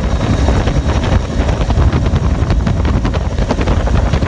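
Bell 212 helicopter in flight, heard from on board: loud, steady rotor and turbine noise.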